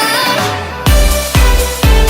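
Background electronic dance music: a melodic passage dips briefly, then a steady kick-drum beat comes in just under a second in, about two beats a second.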